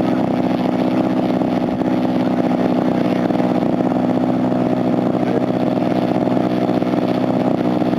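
Large RC airplane's engine running steadily, holding one even pitch.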